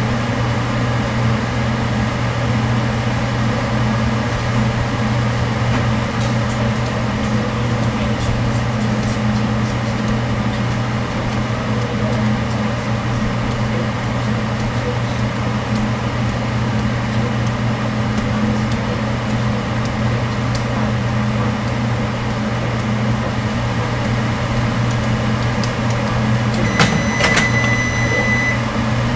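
Microwave oven running with a steady electrical hum while heating soft-plastic lure material before injecting it into the mold. Near the end come a couple of clicks and a high beep lasting about a second and a half.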